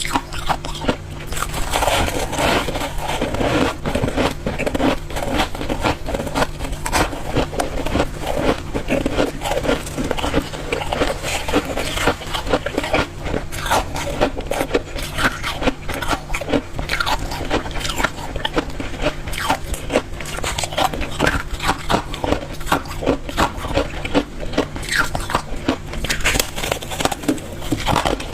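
Close-miked biting and chewing of hard refrozen freezer-frost ice, with a dense run of crisp crunches throughout and a faint steady hum underneath.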